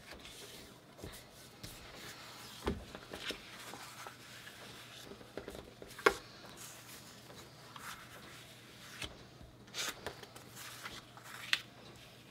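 Paper sticker sheets being handled and laid down on a marble tabletop: soft paper rustles and a handful of light taps and slides, the sharpest tap about six seconds in.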